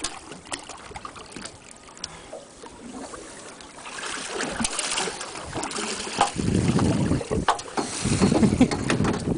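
Splashing as a gaffed yellowtail kingfish is hauled over a boat's side, then heavy thumping and scuffling as the fish is wrestled onto the deck, starting a little past halfway. Wind buffets the microphone.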